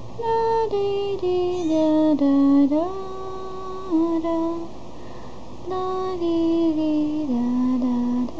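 A short tune sung in a high voice, held notes stepping mostly downward, in two phrases with a pause of about a second between them.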